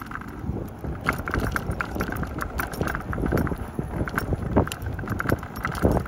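Bicycle rolling over a rough concrete deck, its parts rattling and clicking over the surface.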